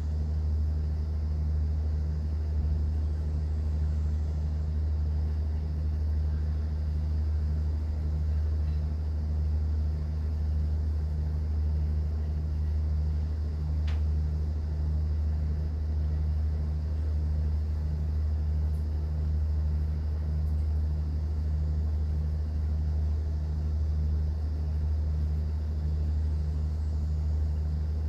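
Cruise boat's engine running steadily, a deep drone with an even low pulse.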